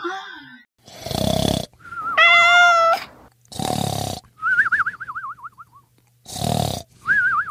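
Cartoon snoring sound effect: a rasping snore followed by a warbling whistled exhale that wavers and falls in pitch, repeated three times.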